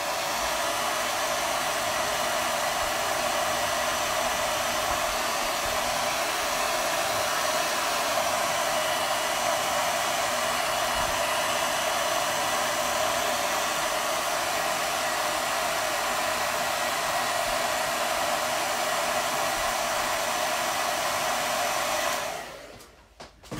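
Handheld hair dryer blowing steadily, drying chalk paste on a board. It is switched off near the end and fades out over about a second.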